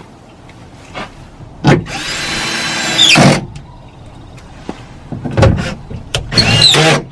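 Cordless drill-driver running bolts into a car door, in two runs: one of about a second and a half and a shorter one near the end, each with a pitch drop as it stops, with knocks in between.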